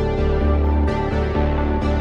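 Background music: sustained notes over a deep bass line, with a soft beat about once a second.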